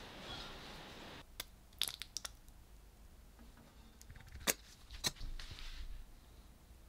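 A drill press runs steadily for about the first second, then cuts off; after that come a few light, sharp clicks and taps, a cluster of them early and two stronger ones past the middle, as a walnut board is handled on a wooden bench.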